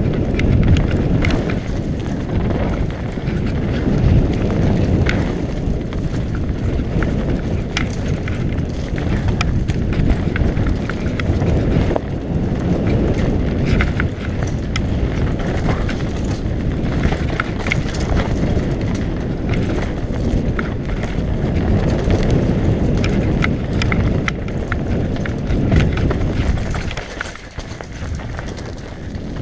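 Mountain bike descending a dirt forest trail at speed: wind buffeting the microphone and tyres on dirt, with frequent rattles and clicks from the bike over roots and bumps. The noise eases briefly near the end.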